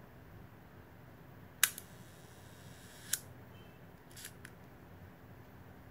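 Leaf shutter of a Mamiya-Sekor 80mm f/2.8 twin-lens panel being worked: a sharp click about one and a half seconds in, another click about a second and a half later, then two lighter clicks close together near the end.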